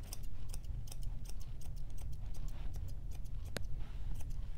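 Dog grooming shears snipping through a puppy's coat: a steady run of quick, crisp snips, several a second, with one sharper click about three and a half seconds in.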